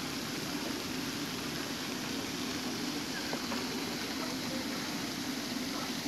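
Steady rushing and splashing of water, an even noise with no breaks.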